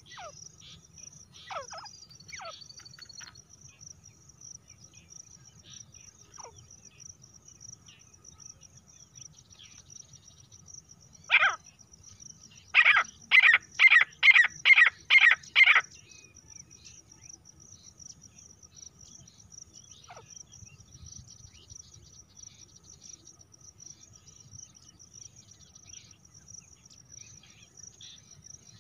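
Female grey francolin calling: one loud call about eleven seconds in, then a quick run of about seven loud calls over three seconds. A steady high cricket trill goes on throughout.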